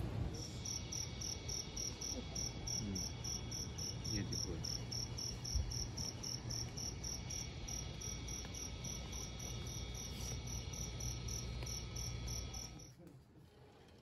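Cricket chirping steadily at about four high chirps a second over a low steady hum. Both cut off suddenly near the end.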